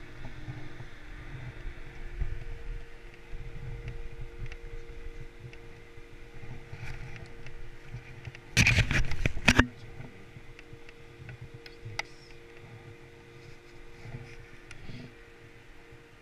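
Skis sliding slowly over groomed snow, a rough, uneven low rumble, with a steady low hum underneath. About halfway through comes a loud burst of scraping noise lasting about a second.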